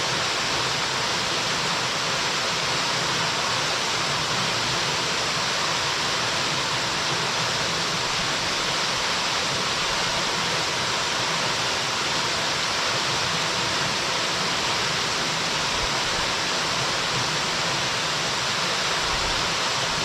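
Waterfall: water falling and splashing in a steady, even rush, strongest in the higher hiss.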